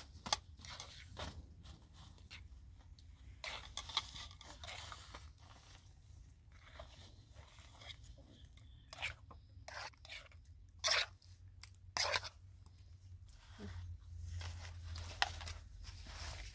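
Irregular crunching and crackling, with several sharper, louder snaps at uneven intervals.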